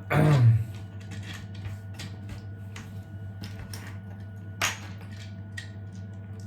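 Light clicks and taps of small 3D-printed plastic parts being handled and fitted together, with one sharper click about four and a half seconds in, over a steady low hum.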